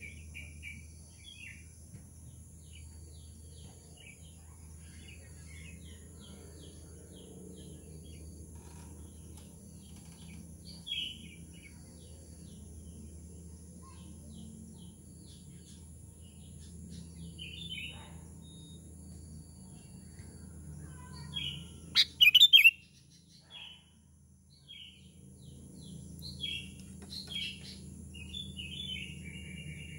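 Sooty-headed bulbul (kutilang) giving short chirping calls throughout, with a loud burst of calls about 22 seconds in.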